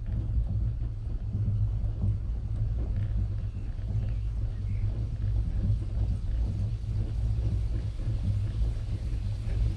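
Steady low rumble of a gondola cable car cabin running along its cable, with faint scattered clicks and rattles.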